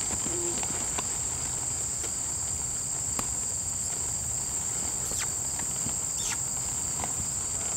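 Steady high-pitched chorus of insects, with faint hoofbeats of a horse walking on dirt and a few short falling chirps.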